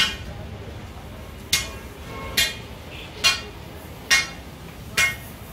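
Metal being struck repeatedly, like a hammer on metal: six sharp, evenly paced blows a little under a second apart, each with a short ring.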